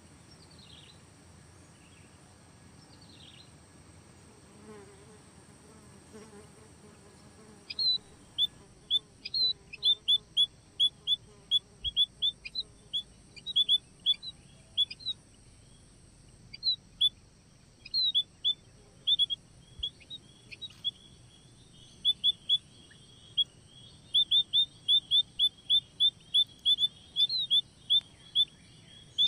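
Small birds, emprit (munias), giving runs of short, sharp high chirps several times a second, starting about eight seconds in, over a steady high insect drone.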